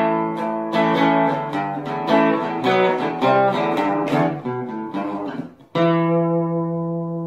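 Guitar music: a run of plucked notes, then a final chord struck about six seconds in that rings out and slowly fades.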